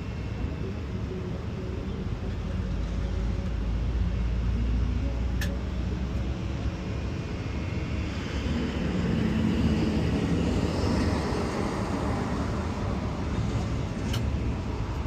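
Steady outdoor rumble of traffic and wind with a faint hum. A broad swell of noise rises and fades about eight to twelve seconds in, and there are two faint clicks, one in the middle and one near the end.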